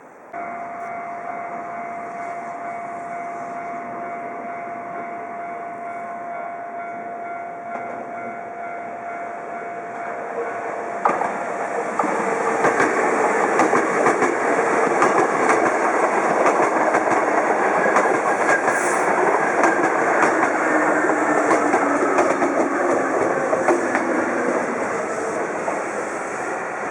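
Electric commuter train on the Hankyu Senri Line pulling into the station. A steady high tone comes first, then wheel clatter over the rail joints grows loud about twelve seconds in, while a motor hum falls in pitch as the train brakes.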